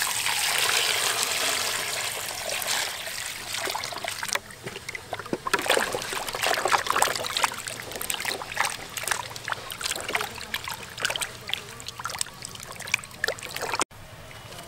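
Water pouring into a plastic basin over peeled cassava roots, a steady splashing hiss for about four seconds. Then hands swish and rub the cassava pieces in the water, with many small splashes and knocks, until an abrupt cut near the end.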